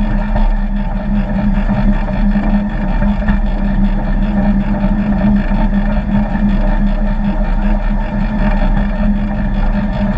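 A 7¼-inch gauge miniature railway locomotive running along the track hauling its passenger train: a loud, steady drone with a strong low hum.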